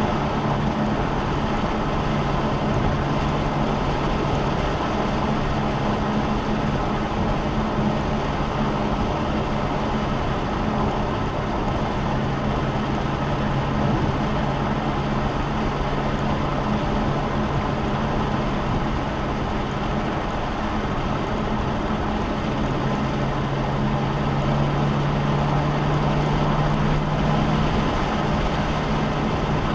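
Car's V8 engine droning steadily at cruise with road and tyre noise, heard from inside the cabin; the engine hum shifts slightly a few times with the throttle.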